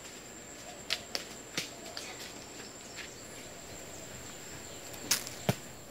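Mangoes being caught and dropping onto dry leaf-littered ground: a few short soft thuds with leaf rustle in the first two seconds, then two louder knocks about five seconds in, over a faint steady high-pitched tone in the quiet outdoor background.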